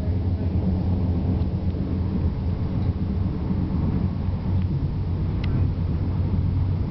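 Steady low rumble inside the carriage of a Northern Ireland Railways C3K (Class 3000) diesel multiple unit running along the line: the underfloor diesel engine and the wheels on the rails.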